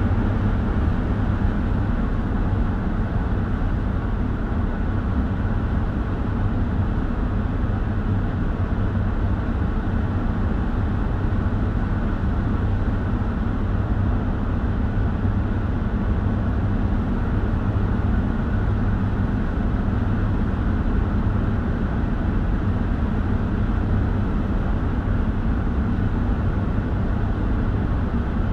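Van interior while driving: steady low engine drone and road rumble heard from inside the cabin, with an even hum and no marked changes in speed.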